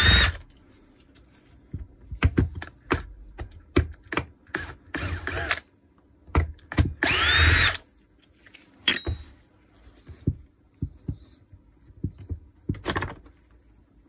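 An electric screwdriver unscrews the screws of a rotary hammer's battery compartment in several short runs, each spinning up with a rising whine. Sharp clicks and small knocks come in between as the screws and plastic parts are handled.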